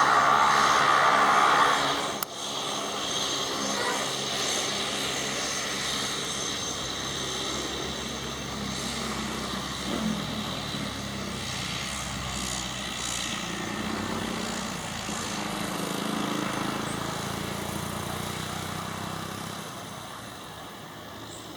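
Cessna 208B Grand Caravan's PT6A turboprop engine and propeller, loud for about the first two seconds, then dropping abruptly to a lower, steady running that fades near the end.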